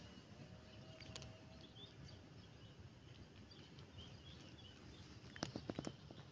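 Faint outdoor background with small high bird chirps scattered throughout. About five and a half seconds in, a quick run of sharp clicks.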